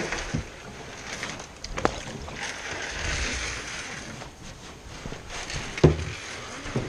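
Canoe being paddled: the paddle splashes and swishes through the water. It knocks against the canoe's side twice, the louder knock with a dull thump near the end.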